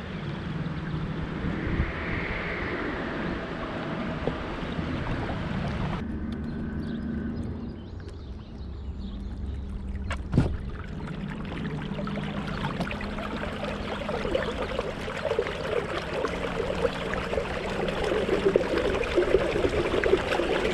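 River water gurgling and splashing around a kayak, growing louder over the last few seconds, with a single sharp knock about halfway through.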